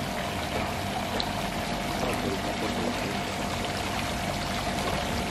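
Water splashing and trickling down the tiers of an ornamental fountain, a steady even rush, with a faint steady tone underneath.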